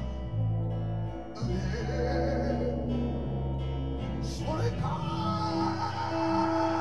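Live improvised music: guitar and low, held bass notes with long sustained tones, and a high noisy layer that comes in about a second and a half in.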